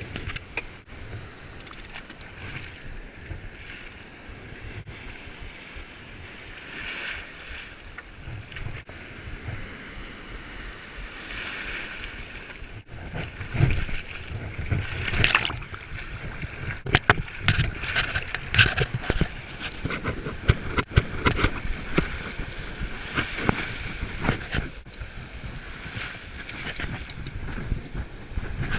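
Wind buffeting the microphone over the wash of sea waves, gusting harder and more choppily in the second half.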